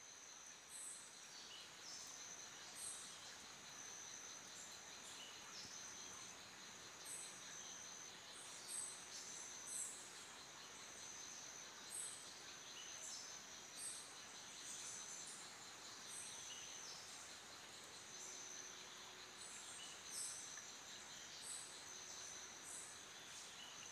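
Faint tropical rainforest ambience: a steady high insect drone, with short, very high chirps that slide downward, repeating every second or two.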